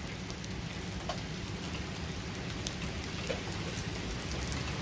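Rain and hail falling on pavement: a steady hiss with a few scattered sharp ticks of stones striking.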